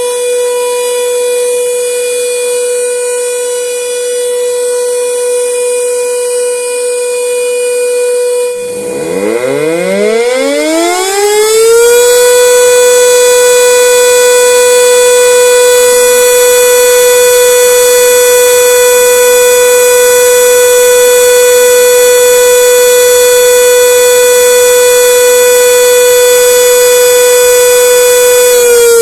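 High-power electric siren (hooter) sounding one steady high tone. About nine seconds in it breaks off, then winds up in pitch over about three seconds to the same steady tone, louder now, and holds it. At the very end the pitch starts to fall as it winds down.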